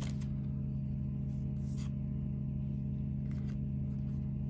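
Steady low droning hum of machinery from outside, the noise of street work, with a few soft taps and rustles of tarot cards being handled.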